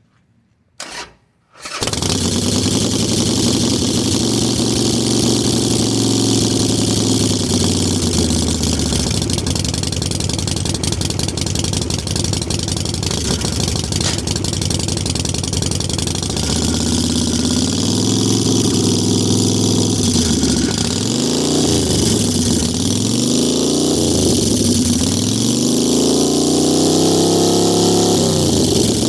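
2007 Harley-Davidson Nightster's V-twin running through aftermarket Magnaflow exhaust pipes. After a brief crank about a second in, it starts and idles steadily, then from about two-thirds through it is revved in several quick blips that rise and fall.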